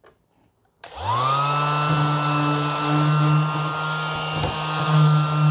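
Ryobi 18V ONE+ cordless random orbit sander switched on about a second in, spinning up quickly to a steady hum as it sands the rough edge of a piece of wood.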